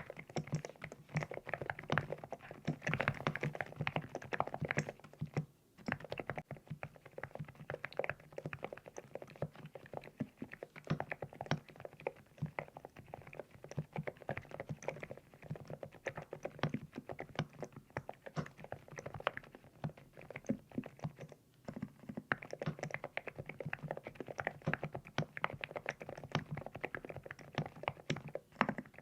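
Fast, continuous typing on a LEOBOG Hi75 full-aluminium mechanical keyboard with Nude Rose switches, each keystroke a rounded, pebble-like clack, with two brief pauses, about six seconds in and near twenty-one seconds.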